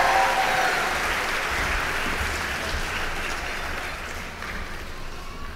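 Audience applauding, loudest at first and slowly dying away over a few seconds.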